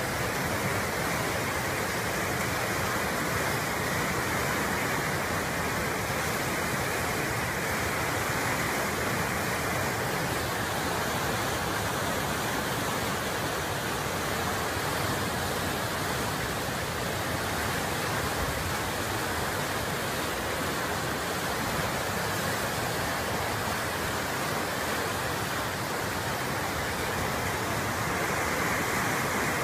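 Muddy flash-flood water rushing in a broad torrent, a steady, unbroken rushing noise.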